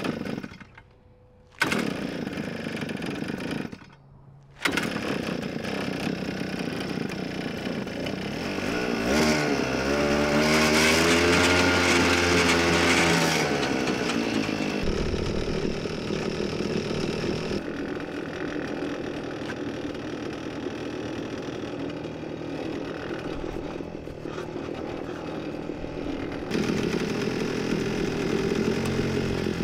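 Small engine on a reel winder running as it spools up electrified fladry polywire, with two brief breaks in the first few seconds. About nine seconds in it revs up, holds high for a few seconds, then settles back to a steady run.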